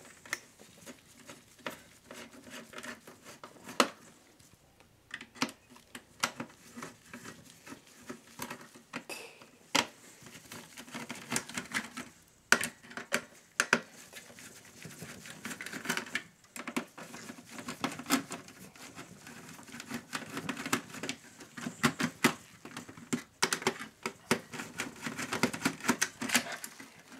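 Screwdriver turning the screws that hold down a CPU heatsink, giving irregular small clicks and light scraping.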